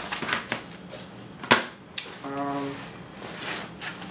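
Handling noise of plastic and nylon gear: scattered clicks and knocks, two of them sharp about one and a half and two seconds in, with rustling between. A short low hum from a man's voice comes just after the second click.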